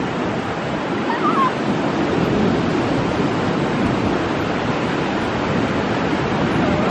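Ocean surf washing up the beach, a steady rush of breaking waves, with some wind on the microphone.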